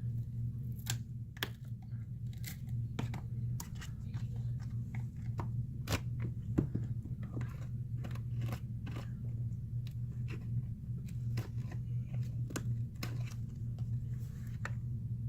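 Irregular small clicks and crackles as a plastic pry tool works under a cracked phone screen, its glass and adhesive crunching as the LCD is lifted off. A steady low hum runs underneath.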